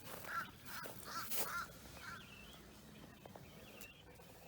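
A bird calling a quick run of about five short notes in the first two seconds, then falling quieter.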